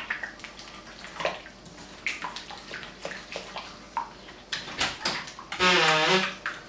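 A wet batter of butter, sugar, egg, lemon zest and oil being mixed in a bowl, with irregular scrapes and knocks of the utensil against the bowl. A short voice sound, the loudest thing, comes near the end.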